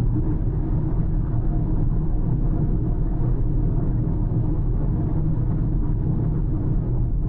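A car driving at a steady pace: an even low rumble of engine and tyres on the road that holds without change.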